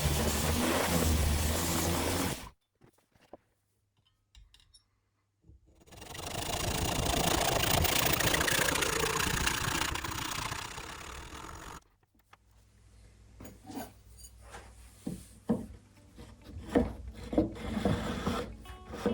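A power tool runs for about two and a half seconds and stops, then after a short pause runs again for about six seconds. A run of irregular sharp knocks and clicks follows near the end.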